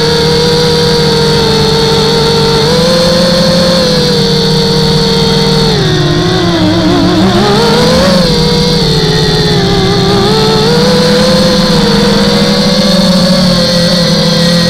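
250-size quadcopter's brushless motors and propellers whining steadily, heard up close from the onboard camera. The pitch drops and wavers about six seconds in, then climbs back about eight seconds in as the motors slow and speed up again.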